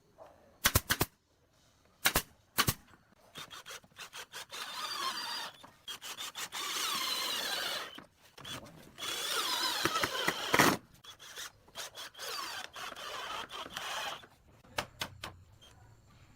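A power tool working pallet wood in three runs of a few seconds each, its pitch wavering, after a few sharp knocks of wood about one and two seconds in.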